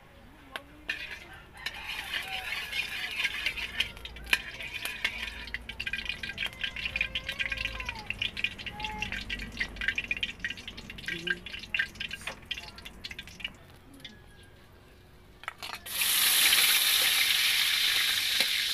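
Hot cooking oil crackling and spitting in a steel wok while a metal spatula stirs it. About sixteen seconds in, garlic goes into the oil and a loud, steady sizzle starts.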